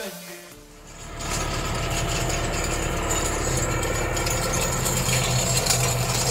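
Massey Ferguson 5S tractor's four-cylinder diesel running steadily as it pulls a chain meadow harrow, with a light rattle from the harrow's chains; the engine sound comes in about a second in.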